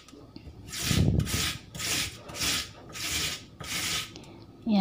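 Raw potato being grated on a flat stainless-steel hand grater over a wooden cutting board: about five even scraping strokes, roughly two a second, starting about a second in.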